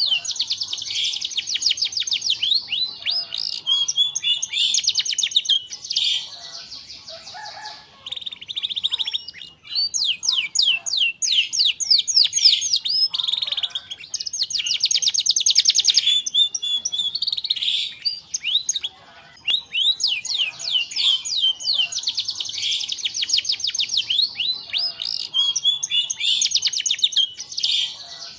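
Domestic canary singing in long phrases of rapid, rolling trills, broken by two short pauses.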